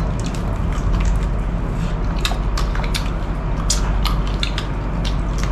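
Two people eating with their fingers: scattered small clicks, smacks and crunches of chewing and picking at food, over a steady low hum.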